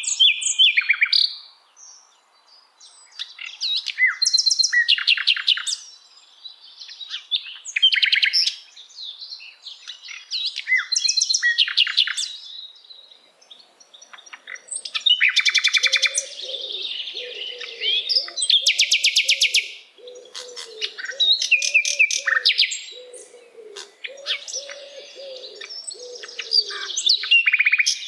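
Sikatan londo songbird singing in varied phrases of a few seconds each, mixing quick trills, buzzy rattles and high whistled notes with short pauses between. In the second half a lower, wavering note repeats steadily underneath the song.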